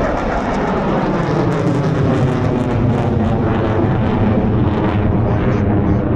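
Military jet aircraft flying past at an airshow: a loud, steady engine noise whose pitch slides down in the first second and then holds.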